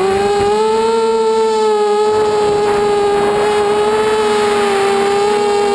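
Mini FPV quadcopter's brushless motors and propellers running with a steady high whine that wavers a little in pitch, rising slightly at the start. A rush of air grows over it after about two seconds.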